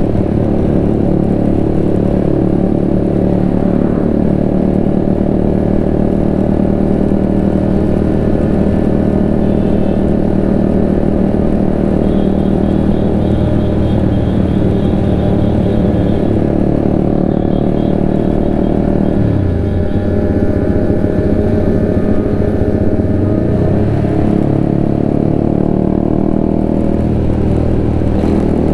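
Honda CBR150R's single-cylinder engine running steadily under way, heard close up from the bike. Its note drops about two-thirds of the way in, then climbs again.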